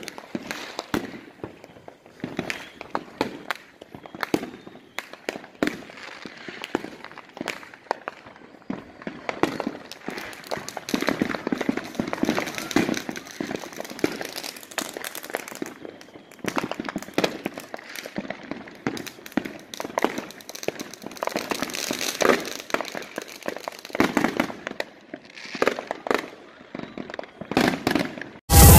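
Fireworks and firecrackers going off around the neighbourhood: a dense, irregular run of sharp pops and crackles, ending in one very loud blast.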